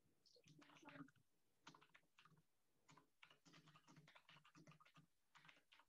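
Faint computer keyboard typing: a quick, uneven run of key clicks.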